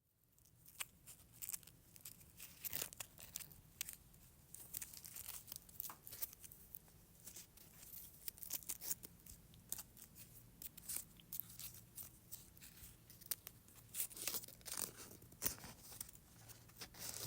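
Close-miked chewing gum: irregular sticky clicks and smacks, coming every fraction of a second.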